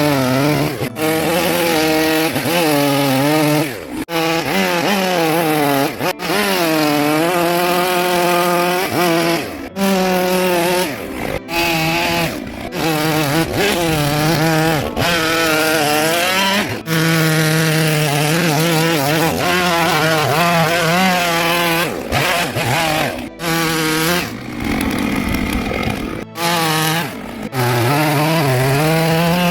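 Chainsaw running while carving wood, its engine pitch rising and falling over and over as the blade bites and eases off, with several abrupt breaks in the sound.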